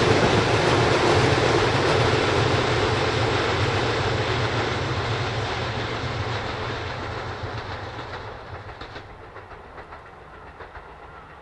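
Keisei electric train running past, its wheels clattering over the rail joints, the sound fading steadily as it moves away.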